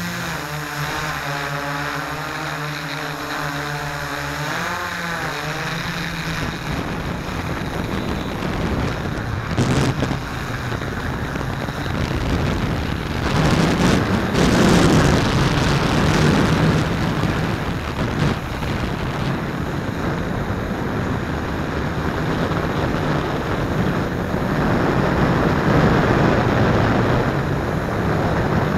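S650 hexacopter's six electric motors and propellers whining, heard from the onboard camera, the pitch wavering up and down with throttle for the first few seconds. After that the whine is mostly buried under a rush of wind on the microphone, which swells twice, about halfway through and near the end.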